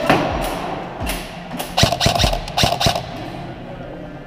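Airsoft guns firing indoors: scattered sharp shots, with a quick string of them about two seconds in. Steady background music plays underneath.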